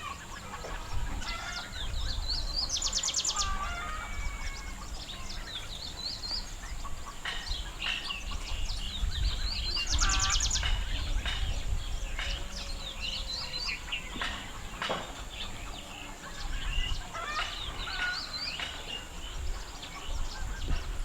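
Small birds chirping and calling over and over, with a rapid buzzy trill about three seconds in and again about ten seconds in, over a low rumble.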